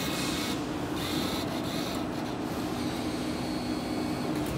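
Vending machine bill acceptor motor drawing in a paper banknote, whirring in short spurts near the start and again about a second in, over a steady low hum.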